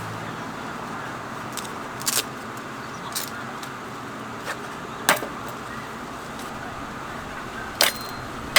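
Several short, sharp clicks and clinks of small objects being handled, spaced a second or more apart, over a steady background hiss.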